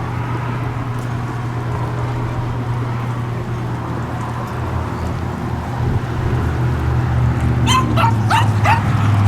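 A steady low hum, then, near the end, a small Maltese dog starts yipping: a quick run of short, high-pitched yips, each dropping in pitch.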